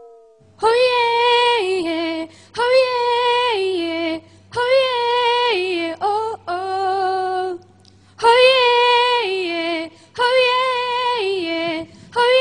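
A high-pitched voice singing unaccompanied: the same short falling phrase of held notes, repeated about six times with brief breaths between, over a faint low steady hum.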